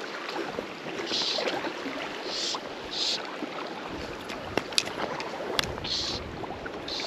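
River water running, with repeated splashing and a few sharp clicks while a hooked trout is played on a fly rod.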